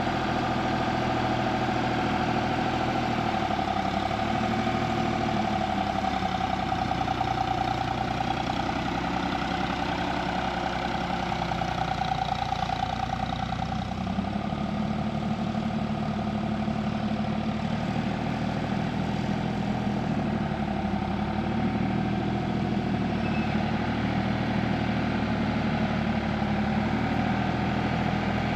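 Farm tractor's diesel engine running steadily, its pitch dipping and rising again a few times as the load or throttle changes.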